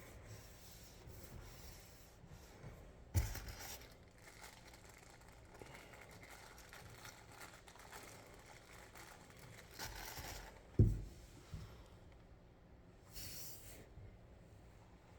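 Hands handling a collectible figure and its packaging: rubbing and scraping, with a knock about three seconds in and a sharper, louder knock near the eleventh second.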